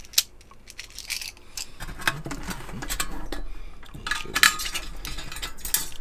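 Stainless steel fire pit pan and frame clinking and scraping as they are handled, with a sharp clink right at the start and denser rattling from about two seconds in.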